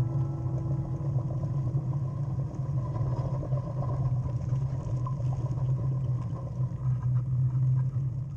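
A steady low rumble over a light hiss.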